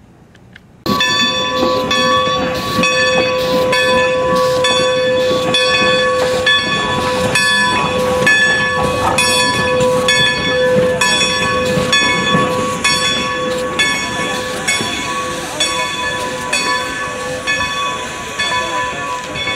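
Bell of a 1924 Baldwin 2-10-0 steam locomotive ringing steadily at about two strikes a second, starting suddenly about a second in, over the hiss of steam venting from the engine as it moves.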